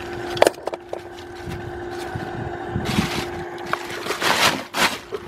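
Plastic garbage bag rustling and crinkling in a few bursts as it is spread out, with a sharp click about half a second in, over a steady hum.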